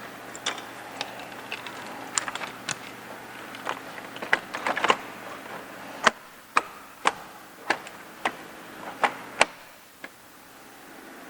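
A series of sharp clicks and knocks from hand work as a Jeep Wrangler's grille is fitted and its lights hooked up: a busy cluster of clicks, then single knocks about half a second apart.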